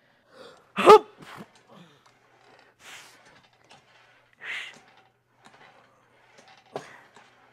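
A man grunting and breathing hard while lifting on a seated leg curl machine: one loud grunt about a second in, then a few hard exhales.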